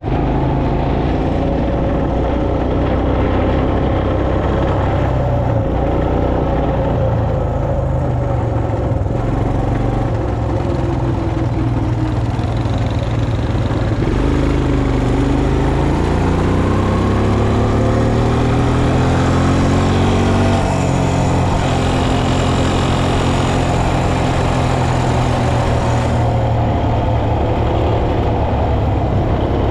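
Quad bike (ATV) engine running under the rider as it travels along the road. The engine note climbs steadily for several seconds about halfway through as it speeds up, then holds steady.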